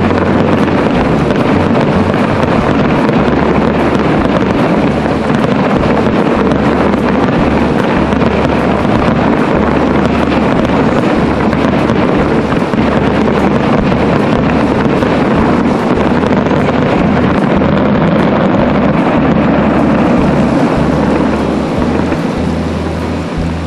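Fireworks finale barrage heard from a distance: a dense, continuous rumble of overlapping bursts and crackle that eases off near the end as the display stops.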